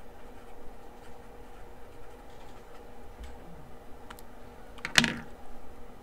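Marker writing on a paper notepad: faint scratches and light ticks, then a sharper click with a short rustle about five seconds in.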